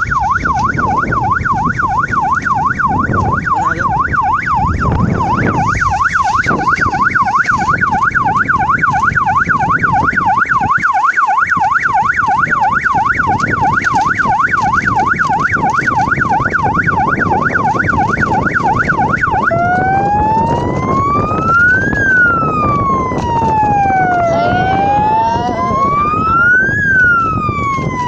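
Three-mode electronic police-style siren fitted to an electric bicycle, sounding a fast yelp, a tone sweeping up and down a couple of times a second, then switching about two-thirds of the way through to a slow wail that rises and falls about every five seconds. A low rumble of noise runs underneath.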